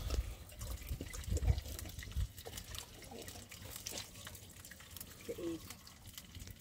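Cooking over an open wood fire: scattered small crackles and clicks from the fire and from a small pan being worked at the flames. Low rumbling runs through the first two seconds or so.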